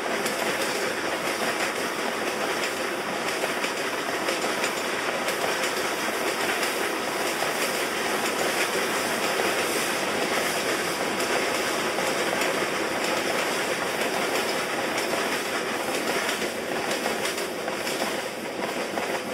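Loaded coal wagons of a long freight train rolling past, steel wheels clicking over the rail joints in a steady rumble. It grows a little quieter near the end as the last wagon goes by.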